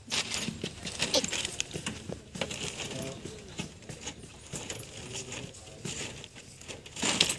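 Irregular metallic clinks and rattles as the wire-mesh grille and tools are handled, with low voices talking.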